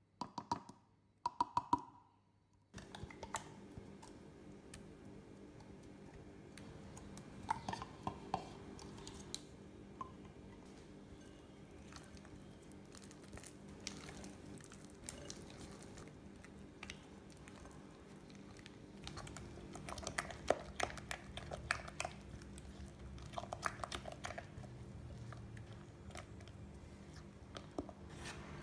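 A few plastic clicks as the blade is lifted out of a mini food processor bowl. Then a silicone spatula scrapes and mixes thick cream cheese and avocado batter in a glass bowl over a steady low hum, with clusters of sharp taps against the glass about two-thirds of the way through.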